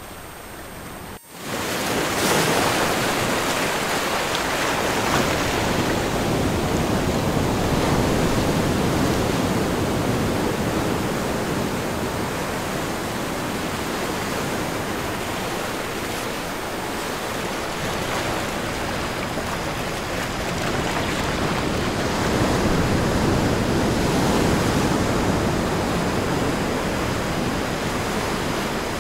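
Recorded ocean waves in a continuous wash of surf that swells and eases slowly. About a second in it breaks off for an instant and comes back louder, and a faint high steady tone sits under it in the second half.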